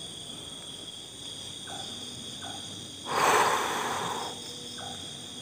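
Steady chorus of crickets or other insects, with a louder breathy rush of noise about three seconds in that lasts about a second.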